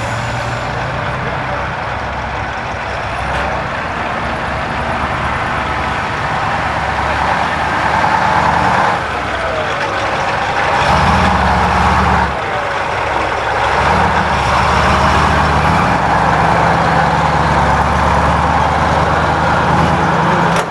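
KrAZ-255 6x6 truck's YaMZ-238 V8 diesel running under load while driving off-road. The engine note drops off briefly about nine seconds in and again about twelve seconds in, then picks up again.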